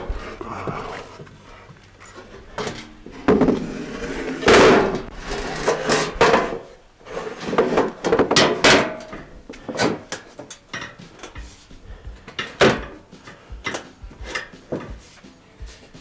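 A wooden buck being fitted into a car's front quarter panel: an irregular run of knocks, thuds and scrapes as it is pushed and tapped into place, loudest around five and nine seconds in.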